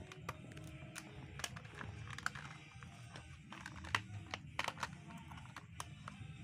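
Hard plastic body of a toy remote-control car being handled and turned over in the hands: scattered light clicks and knocks, with a sharper knock about four seconds in.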